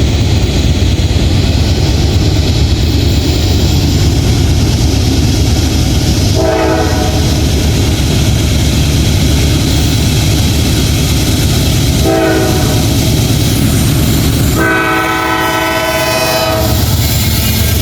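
A train rolling past with a steady low rumble and wheel clatter, its horn chord sounding three times: a blast of about a second, a short one, then a longer one of about two seconds.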